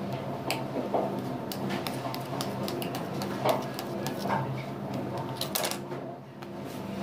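Scattered light clicks and clatter of kitchen utensils on hard surfaces, over a steady low machine hum of kitchen equipment.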